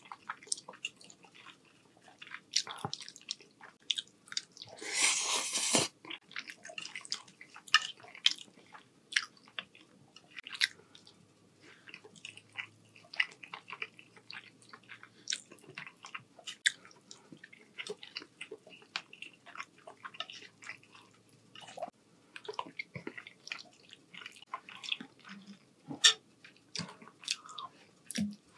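Close-miked chewing of soft rotini pasta in meat sauce: wet mouth clicks and smacks, with a metal fork scooping on a ceramic plate. About five seconds in, a louder, harsher noise lasts about a second.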